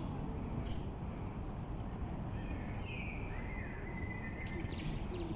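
Outdoor ambience of steady low background noise with a few short bird chirps and a high whistle around the middle.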